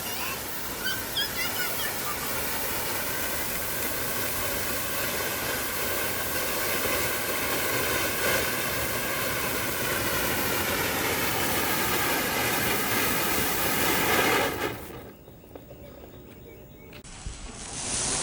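Crackling fountain firework spraying with a steady hiss, which stops sharply about fourteen and a half seconds in as the fountain burns out.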